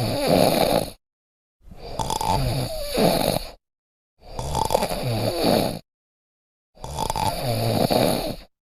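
A person snoring: four long snores, each lasting about one and a half to two seconds, with total silence between them.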